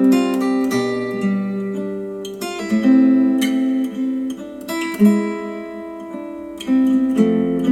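Acoustic guitar music, with strummed and plucked chords changing every second or two, played back through a pair of hi-fi bookshelf speakers.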